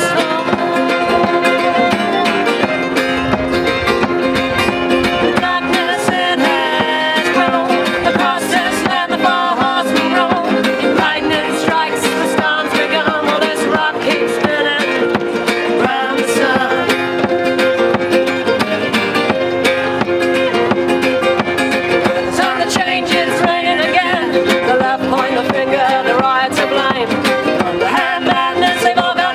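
Live acoustic folk band playing: acoustic guitars strummed with a fiddle played alongside, the music steady and unbroken.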